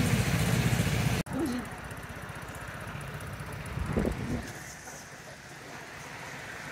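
Vespa scooter engine idling, close and loud with an even low pulse. About a second in it cuts off abruptly, leaving a much quieter, low engine hum with a brief voice sound near the middle.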